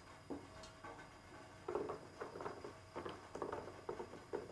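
Cooked black soybeans dropped by hand, one at a time, onto the mesh-lined base of a bamboo steamer: about a dozen soft, faint taps, unevenly spaced.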